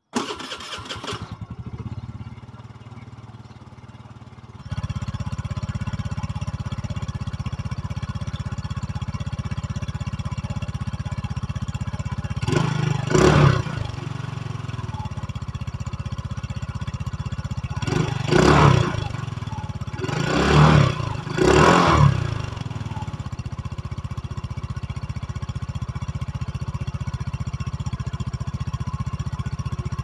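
A 125 cc fuel-injected scooter engine starts and settles to a steady idle. It is heard loud and close at the exhaust from about five seconds in. The throttle is blipped for short revs several times in the middle.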